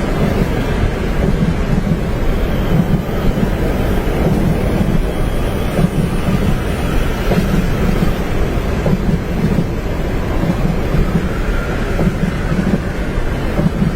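Train running on its tracks, a steady low rumble with an uneven pulse, mixed with the rushing noise of snowstorm wind.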